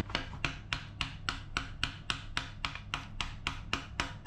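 A hand tool scraping or rasping against a hard surface in quick, even strokes, about four a second.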